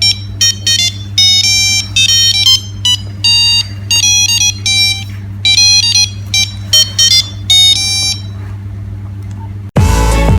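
Nokia 3610 mobile phone playing a ringtone melody: a quick run of short, high, buzzy beeping notes, one at a time, for about eight seconds, over a steady low hum. Loud music with drums starts near the end.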